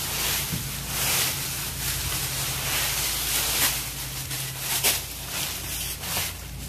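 Dry fallen leaves rustling and crunching as a small plastic rake is dragged through them, in repeated uneven strokes, with a steady low hum underneath.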